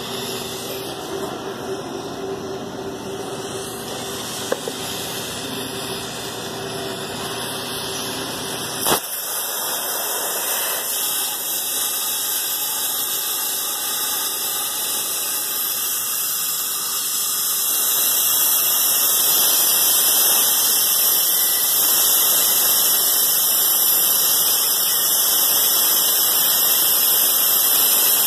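Oxy-fuel cutting torch on a CNC table, its cutting jet hissing steadily as it burns through steel plate. A sharp click about a third of the way in, after which the hiss turns brighter and then louder.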